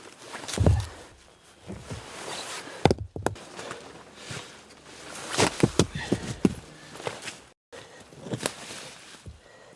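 Footsteps with scattered sharp knocks and crunches, in irregular clusters. The sound drops out completely for a moment about three-quarters of the way through.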